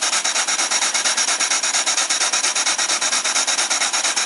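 Steam engine driven by a vertical steam boiler, running steadily: an even, rapid hissing chuff of exhaust steam, about eight puffs a second.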